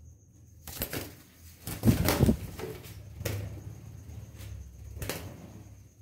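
A budgerigar flapping its wings in a few short bursts, the loudest about two seconds in, with sharp knocks near three and five seconds.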